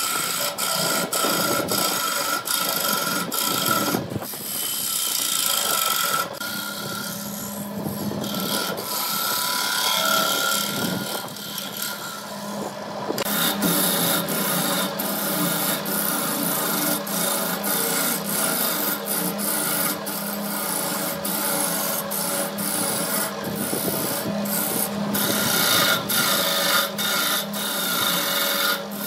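Wood lathe running with a steady hum while a hand-held turning tool cuts into the spinning wooden blank: a continuous scraping, rasping sound of wood being turned.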